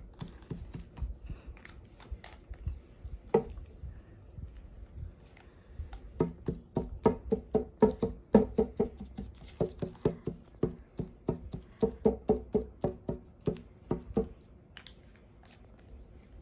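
A dot-paint dauber tapped again and again onto a damp paper coffee filter lying on a tabletop: short dull taps, a few scattered at first, then a steady run of about three a second that stops a couple of seconds before the end.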